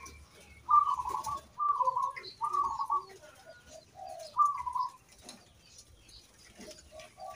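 Caged zebra doves (local-type perkutut) cooing: a run of short, rolling coos with some lower notes among them over the first five seconds, then a lull.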